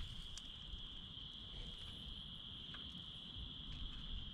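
Steady high-pitched trilling of calling insects, with a low rumble and a couple of faint clicks.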